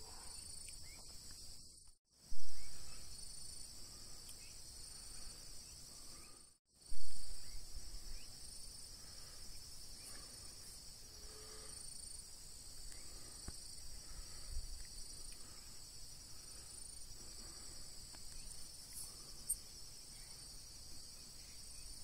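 Steady high-pitched chorus of crickets and other insects at dusk. Twice, early on, the sound drops out for an instant and comes back with a short loud burst that fades over about a second.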